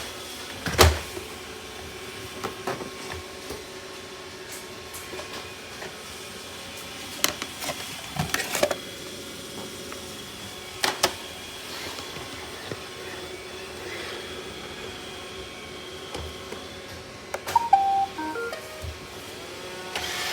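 Robot vacuum running with a steady motor and brush whir, with occasional sharp knocks as it bumps into things. A short series of electronic beeps at stepped pitches comes about three-quarters of the way in.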